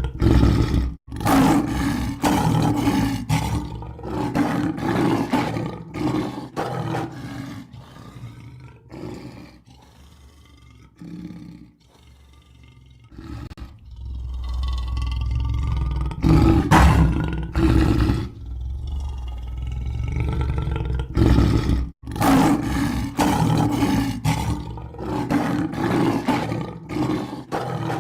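Lion roaring: repeated deep roars and grunts in bouts. They fade to quieter grunts in the middle and come back loud about 16 seconds in, with sudden short breaks about a second in and near 22 seconds.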